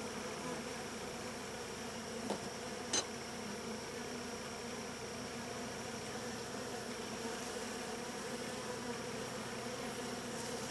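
A steady hum of honeybees buzzing over an open hive, from a gentle colony that the beekeeper thinks may be Carniolan. Two short faint clicks come a couple of seconds in.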